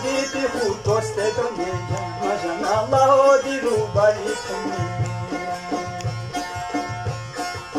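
Khowar folk music played on Chitrali sitars (long-necked plucked lutes) and a harmonium, with a steady low beat.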